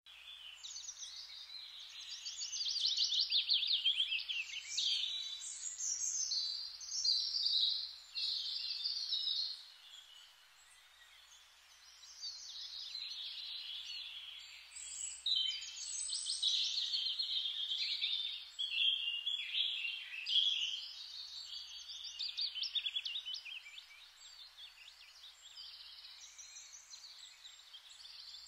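Small birds chirping and trilling, several high calls overlapping in quick runs, with a quieter lull about ten seconds in.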